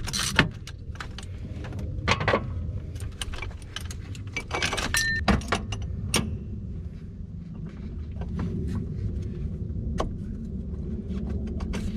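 Metal clinks and clatter from a two-jaw gear puller and the AC compressor pulley being handled. Sharp clicks come at irregular moments throughout, over a low steady rumble.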